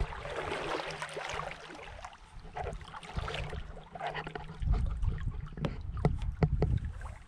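Riverbank ambience: water moving at the bank, with a faint steady hum early on. From about halfway there is a heavy low rumble of wind on the microphone, with several knocks.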